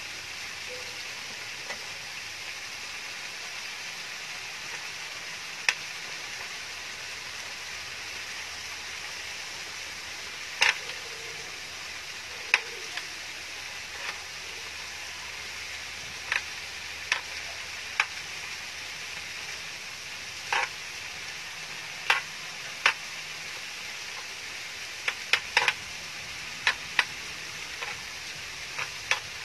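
Chicken and rice sizzling steadily on a round grill pan over a portable gas stove as they are stir-fried, with a spoon and chopsticks knocking and scraping against the pan in scattered sharp clicks that come more often in the second half.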